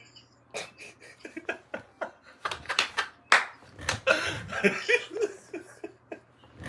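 A person laughing in short repeated bursts, with several sharp hand claps in the first half.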